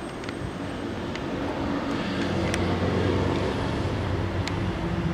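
A motor vehicle engine running steadily with a low hum, growing louder from about two seconds in, with a few faint clicks.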